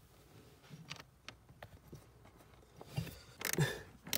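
Socket ratchet winding a screw into a metal bracket: a few light, irregular clicks, with louder knocks about three seconds in.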